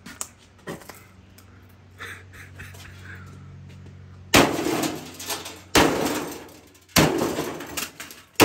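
A microwave oven being smashed: four heavy blows about a second and a half apart, each sudden and dying away with a rattle. Before them come only a few faint light knocks.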